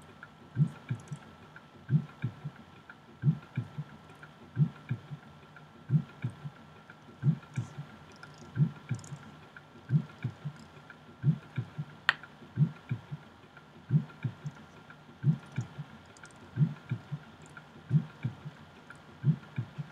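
Looping Indian-style drum beat of a movie's background music track, low thumps in pairs about every 1.3 seconds over a faint steady high drone. A single sharp click about 12 seconds in.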